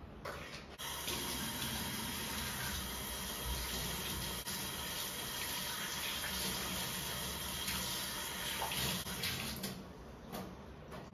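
Kitchen tap running into a stainless steel sink while hands are washed under the stream. The water comes on about a second in and shuts off near the end, followed by a few light clicks.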